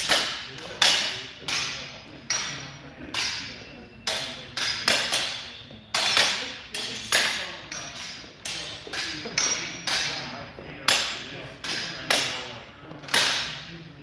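Swords clashing in an irregular run of sharp strikes, about one to two a second, each with a short metallic ring and echo in a large hall.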